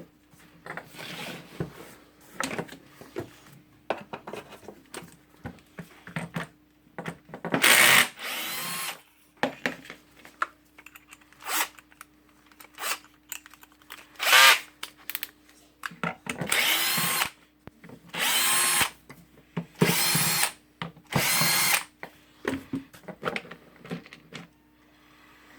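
Cordless drill-driver run in about six short bursts, each winding up and down, taking out screws to open the angle grinder's housing at the cord, with small clicks of parts and tools being handled between the bursts.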